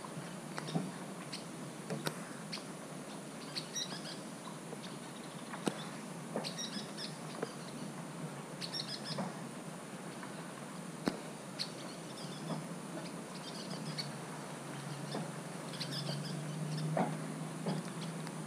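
Scattered raindrops tapping on the GoPro's housing over a light rain hiss, with small birds chirping in short bursts every couple of seconds.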